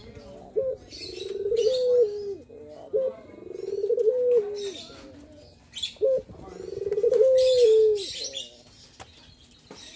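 Male ringneck dove (puter) cooing, three long rolling coos that each swell and end on a held, falling note. High chirping of other birds sounds between the coos.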